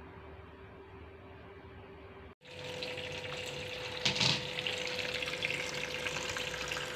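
Faint steady hum, then after a cut about two and a half seconds in, a kitchen tap runs steadily into a plastic bowl of lettuce leaves in a stainless-steel sink, with a brief louder splash a little over four seconds in.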